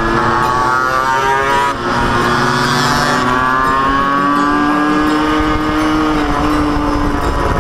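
Honda NS50F's two-stroke 50cc single-cylinder engine accelerating, its pitch rising. There is a brief drop about two seconds in, as at an upshift, then it climbs again and holds near steady.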